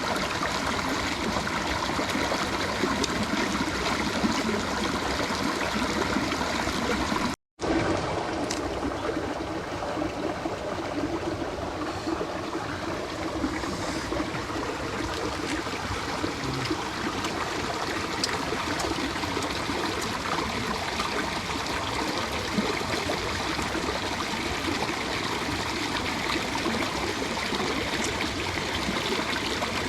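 Water flowing steadily in a mountain stream or waterfall. It drops out for a moment about seven seconds in, then carries on.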